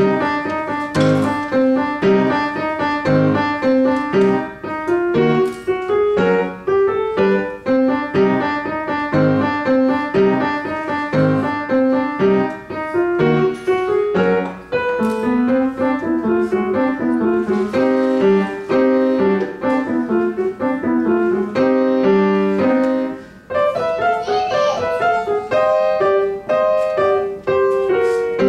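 Upright piano played at a steady, lively pace: a continuous run of distinct notes in a regular rhythm, with a brief break about three-quarters of the way through.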